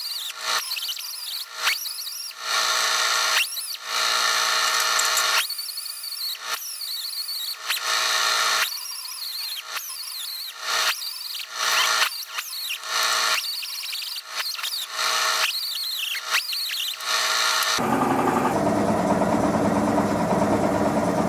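Right-angle die grinder with a small sanding disc, sanding an oak screwdriver handle: a high whine in repeated short bursts as the trigger is pulsed, the pitch dipping and recovering as the disc bites the wood. Near the end a different steady, rushing noise takes over.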